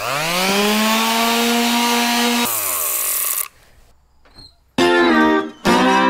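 Electric orbital sander switched on, its motor whine rising in pitch and settling into a steady run for about two seconds, then switched off and winding down. About five seconds in, music begins.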